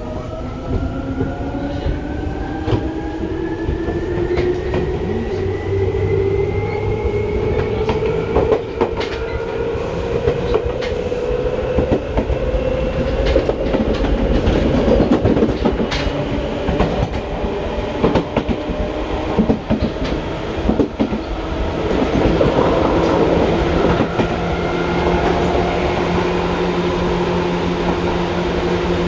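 Seibu 2000 series electric train running: its traction motor and gear whine climbs in pitch over the first dozen or so seconds as the train picks up speed, then levels off, over a steady rumble with the clicking of wheels over rail joints.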